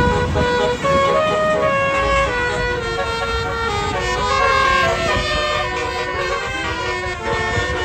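A tour bus's basuri multi-tone horn playing a melody of held notes that step up and down, over a low engine rumble.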